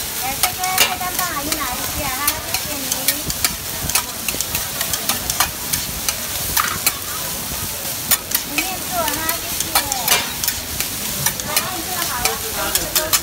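Egg fried rice being stir-fried on a large flat griddle with two metal spatulas: repeated sharp clacks and scrapes of metal on the griddle over a steady sizzle.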